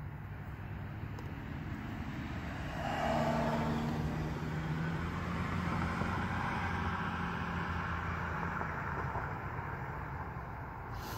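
Road vehicle noise: a steady low hum, with a passing car swelling about three seconds in and slowly fading away.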